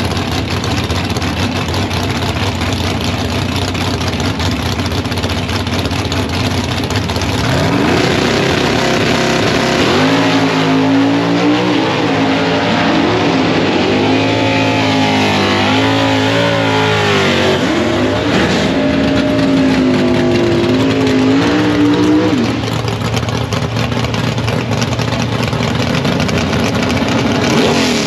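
Drag racing cars' engines: a steady rumble, then from about eight seconds in loud revving whose pitch climbs and drops several times, settling back to a steady rumble about fifteen seconds later.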